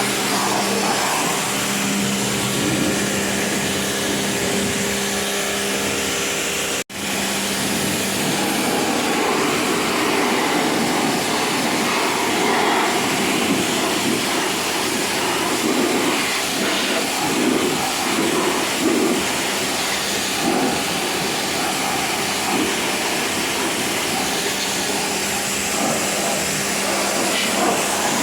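Pressure washer pump running with a steady hum while its water jet hisses against a package AC unit's condenser coil, washing out the blocked fins. The sound cuts out for an instant about seven seconds in.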